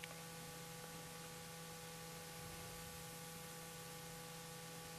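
Faint room tone: a steady low electrical hum under an even hiss, with a few thin steady tones above it.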